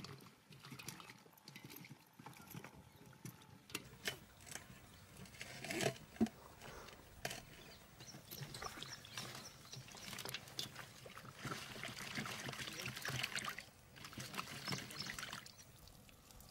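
Hands squeezing and turning wet chopped goat head pieces in water in a steel bowl, with squelches, clicks and splashes. Near the end, water trickles off as the bowl is tipped to drain.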